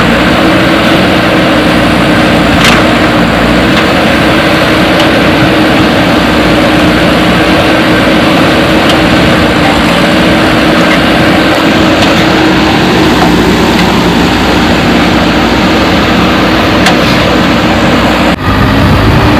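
Backhoe loader's diesel engine running steadily, with a sudden break about eighteen seconds in, after which it carries on with a slightly different tone.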